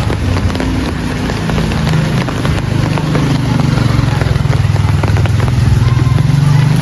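A motor vehicle's engine humming, growing louder through the middle and loudest near the end, over a steady hiss.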